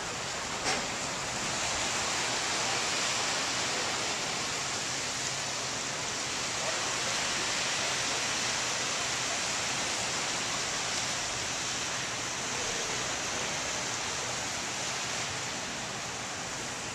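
Gentle surf washing on a sandy beach: a steady, even hiss with slow slight swells in level. A single small click sounds about a second in.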